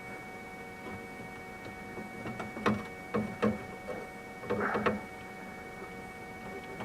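A few sharp clicks and knocks, then a short rattling cluster about halfway through, as parts of an opened 3D printer are handled. Under them runs the steady hum of the powered-on printer.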